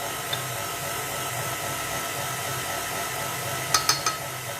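A steady whirring hum throughout, like a running fan or appliance. Near the end come three quick clinks of a metal spoon against the mixing bowl as salt is tipped into the flour.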